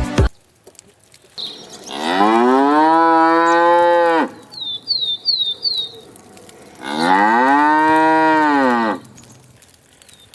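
A cow mooing twice, each call long and drawn out, about two seconds apiece. Between the two calls come four quick high chirps.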